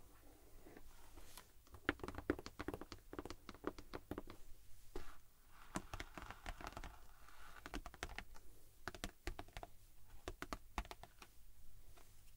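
Long fingernails tapping and scratching on the plastic wrapping of a boxed school supply kit and a framed print, a fast, irregular run of light clicks starting about a second and a half in, with a stretch of soft rubbing around the middle.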